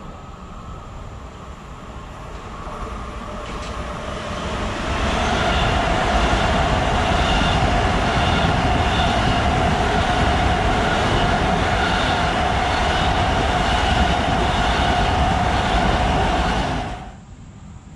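LIRR M7 electric multiple-unit train passing through the station at express speed: rumble of wheels on rail with a steady whine, building over the first few seconds and holding loud. It stops suddenly near the end.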